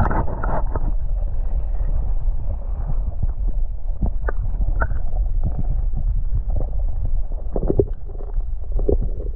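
Water heard from underwater: a muffled low rumble with scattered short clicks and knocks.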